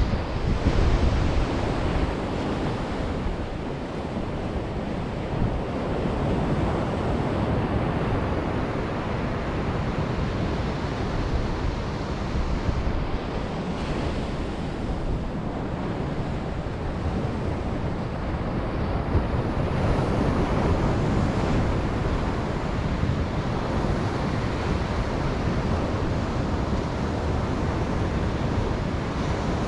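Ocean surf breaking on a beach, a continuous wash of waves that swells and eases every few seconds, with wind rumbling on the microphone.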